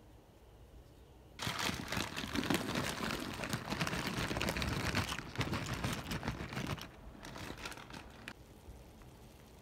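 Plastic bag of dry pasta crinkling and rustling as the pasta is shaken out into a pot of water. It starts about a second and a half in, runs for about five seconds, then goes on more faintly for a little over a second before stopping.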